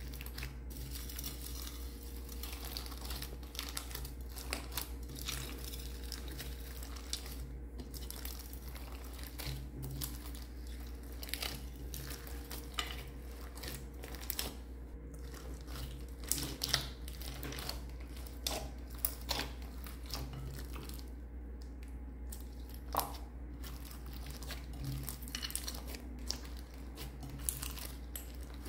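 Hands squishing and kneading clear slime loaded with sequins, beads and glitter in a glass dish: a run of irregular sticky crackles, pops and crinkles, with occasional sharper clicks.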